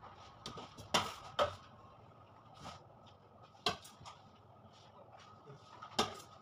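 Sharp clinks and knocks of metal cake-decorating tools against a stainless steel worktable, five or so spread over a few seconds, over a faint steady high hum.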